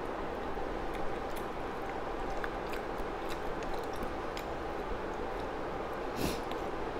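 Quiet eating sounds: faint chewing and a plastic fork tapping and scraping in an instant-noodle cup, with scattered light clicks over a steady background hiss. There is a short breathy sound about six seconds in.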